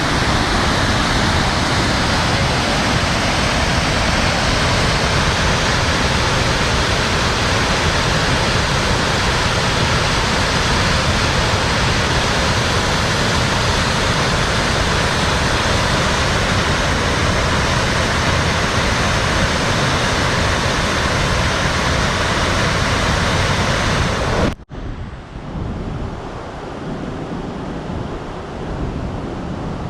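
Waterfall: a steady, loud rush of falling water. About 25 seconds in it cuts suddenly to a quieter, duller rush of water.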